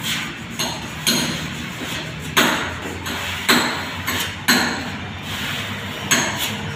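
A hand tool tapping the metal body panel of a car: six sharp knocks, roughly a second apart, each ringing briefly.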